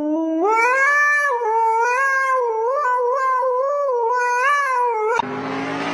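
A cat yowling in one long, wavering call that rises and falls in pitch for about five seconds, then cuts off abruptly. A noisy rush with a low hum takes over near the end.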